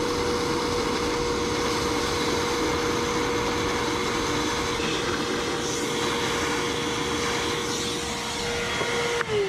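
DEWALT wet/dry shop vacuum running steadily with a constant whine, sucking seeping water out of the repair hole. It is switched off near the end and the motor's pitch begins to fall as it spins down.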